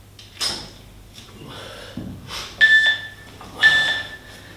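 Three short electronic beeps, evenly spaced about a second apart and starting roughly two and a half seconds in: a workout interval timer counting down the end of the rest period. A brief rush of noise comes about half a second in.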